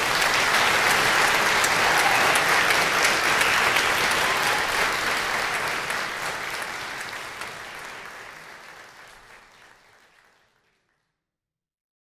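Audience applauding a live saxophone sextet's performance: dense clapping that holds steady for about four seconds, then fades away to silence about ten and a half seconds in.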